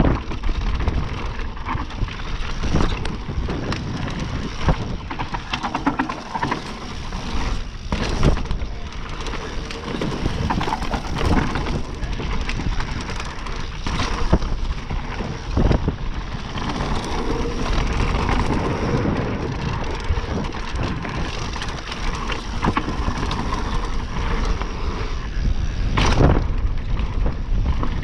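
Specialized Demo Expert 2020 downhill mountain bike ridden fast down a dirt trail: a steady rush of tyres on dirt and wind, broken by frequent knocks and rattles of the bike over bumps.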